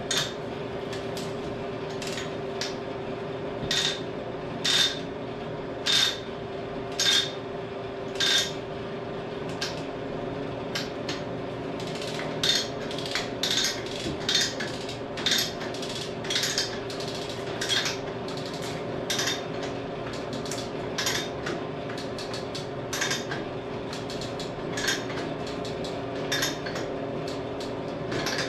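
Steel chain and rigging hardware being handled, giving sharp ringing metal clinks, at first about one a second and then quicker and irregular, over a steady hum.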